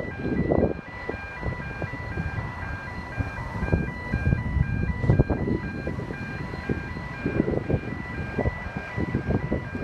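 Level crossing warning bells ringing in a fast, even repeating pattern of electronic tones, over the low rumble of Pacific National 81 class diesel locomotives running slowly with a freight train.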